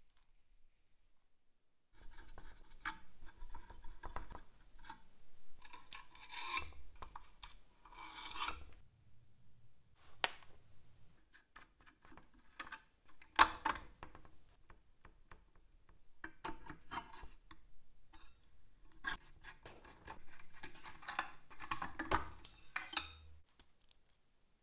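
Irregular scraping and rubbing of a hand tool worked over a part, in bouts with short pauses, with scattered small clicks and one sharp knock about thirteen seconds in.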